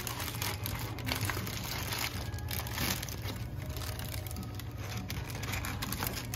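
Brown paper bag crinkling and rustling in irregular crackles as hands open it and reach in for a sandwich wrapped in paper.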